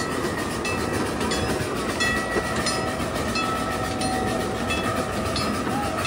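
Miniature ride-on train rolling along its track: a steady rumble of the wheels with repeated clicks over the rail joints and a faint steady high squeal.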